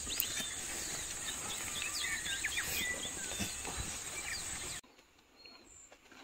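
Outdoor ambience of a steady high insect drone with many short bird chirps over it; it cuts off suddenly about five seconds in, leaving a faint quiet background.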